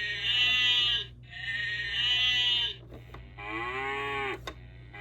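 Recorded cow moos played through the toy farm's small electronic speaker: a run of long pitched calls, each about a second and a half, with short pauses between; the later calls are lower.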